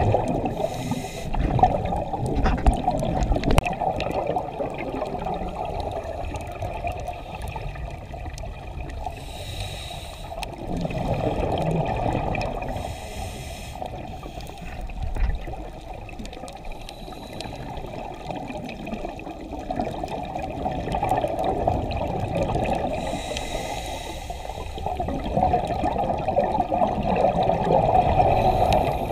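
Scuba diver breathing through a regulator underwater: brief hisses on the inhales and rushing, bubbling swells as exhaled air escapes, several breaths in turn.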